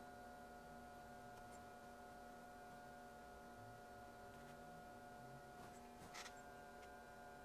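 Near silence: a faint steady hum made of several held tones, with a few faint ticks and one brief noise about six seconds in.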